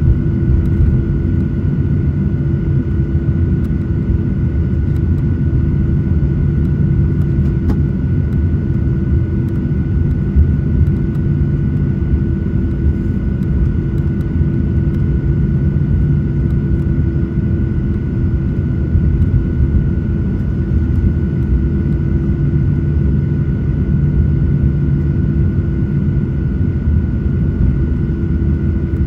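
Jet airliner cabin noise while the plane taxis: a steady engine rumble with a constant hum running through it.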